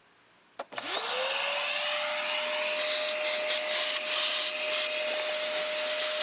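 Canister vacuum cleaner switched on with a click, its motor whining up in pitch and settling into a steady run about a second in. Its nozzle works over the car's floor mats.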